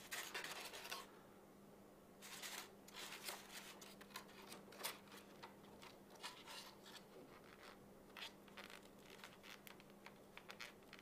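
Faint scratching and rubbing with scattered small ticks as a slide is worked into a slot in a white foam holder, over a faint steady hum.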